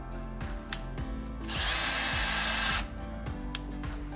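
Power drill driving a portable PVC drain-hole punch, whirring for about a second and a half as it runs the punch mechanism in reverse. A few sharp clicks come before and after the run.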